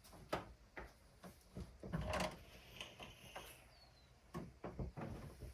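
Scattered light knocks, clicks and rustles of parts and tools being handled, with a louder clatter about two seconds in.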